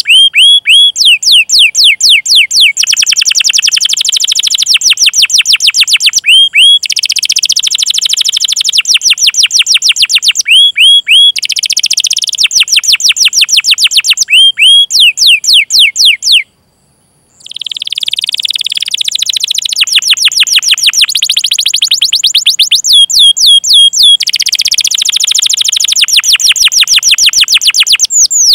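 Domestic canary singing long, fast rolling runs of repeated chirps ('cuit cuit'), each chirp sweeping down in pitch. The runs change phrase every second or two, with one break of about a second partway through.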